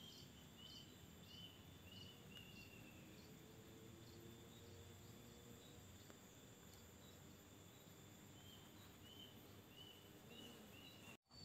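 Near silence: faint outdoor ambience with a distant animal chirping in two runs of about five short chirps, roughly two a second, one near the start and one near the end.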